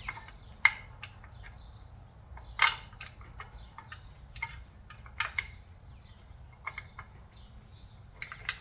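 Scattered light metallic clicks and taps as hands fit chrome air cleaner hardware (cover, bolt and washers) onto the motorcycle. The two loudest come about half a second and two and a half seconds in, with a quick cluster near the end.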